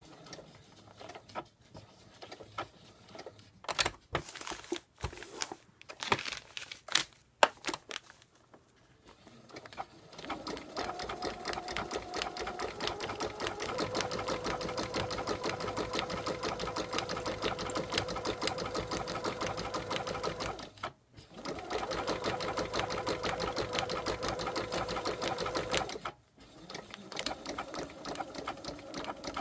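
Domestic sewing machine stitching felt letters onto thin fabric. The first several seconds hold a few scattered clicks and knocks, some of them sharp. Then the machine runs at a steady, fast stitch for about ten seconds, stops briefly, runs again for about five seconds, and goes on more quietly near the end.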